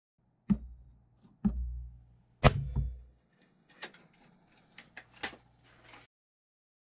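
Three sharp knocks about a second apart, each followed by a short low thud, the third the loudest. A few lighter clicks follow.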